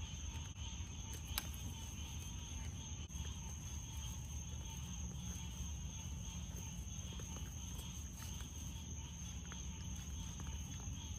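Steady high-pitched chorus of night insects, crickets, over a low steady hum. Scattered faint clicks and crunches come from raccoons chewing dry cat food at a plate, more often in the second half.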